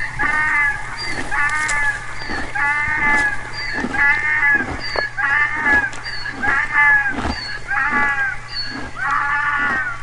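Donkey braying: a long run of hee-haw cycles, about one a second, each high note rising and then falling, with a rougher low breath between.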